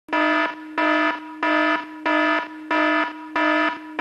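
Electronic alarm buzzer sounding in a regular on-off pattern, six buzzes of about half a second each with short gaps between them, all at one steady buzzy pitch.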